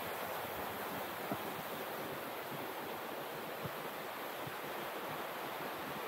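Steady rush of flowing water, like a waterfall or stream, with two faint low thumps in the middle.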